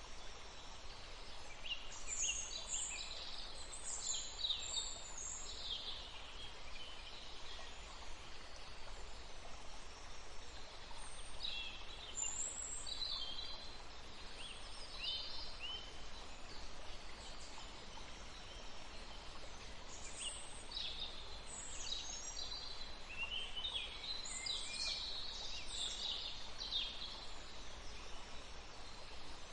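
Steady rushing of water, with small birds chirping and whistling over it in three bouts.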